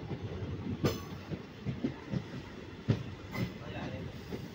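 Passenger train rolling along a station platform: a steady rumble with irregular sharp clacks of the wheels over the rail joints.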